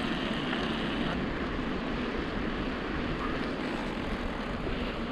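Steady rolling noise of a mountain bike being ridden, heard from a camera carried on the bike: a rush of wind and tyre noise with a faint steady hum under it.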